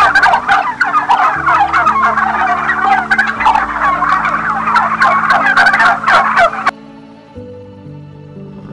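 Turkeys gobbling: a loud, rapid run of overlapping gobbles that cuts off suddenly about two-thirds of the way through, leaving soft background music.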